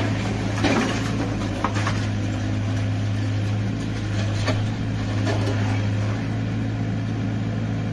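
Hyundai excavator's diesel engine running steadily, with scattered knocks and cracks of brick and timber debris as the long demolition boom breaks into a house, the clearest about four and a half seconds in.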